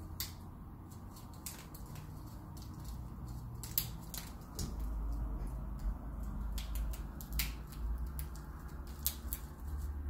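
Indian ringneck parakeet picking at a hanging plastic hole-ball foraging toy with its beak to get at a treat inside: irregular sharp clicks and scrapes of beak on plastic.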